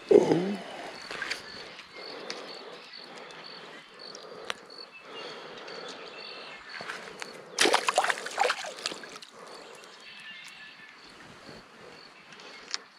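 Handling noise from landing and holding a small largemouth bass at the water's edge: a loud knock with a brief falling low tone at the start, and a dense burst of crackling and flapping about eight seconds in. A faint high chirp repeats steadily behind it.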